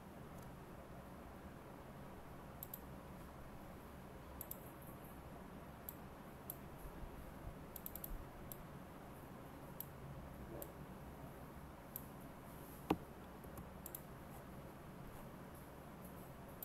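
Computer mouse clicking: light, irregular clicks scattered throughout, with one sharper click about 13 seconds in, over faint steady background noise.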